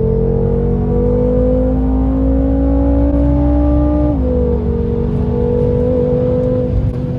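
Dinan Stage 2 tuned BMW F10 M5's twin-turbo V8 at full throttle, heard from inside the cabin, rising in pitch as it pulls hard through third gear. About four seconds in, the dual-clutch gearbox upshifts with a quick drop in pitch, and the engine pulls on in the next gear.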